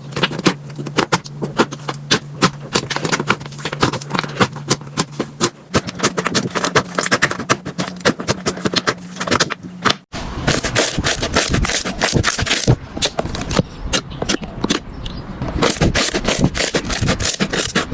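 Slime being squished and poked by hand: a dense run of irregular sticky clicks and pops, with a low steady hum under the first half. The sound breaks off sharply about ten seconds in and the same crackling goes on in another slime clip.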